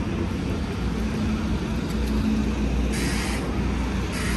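Street traffic: a vehicle engine running with a steady low hum, and two short hisses about three and four seconds in.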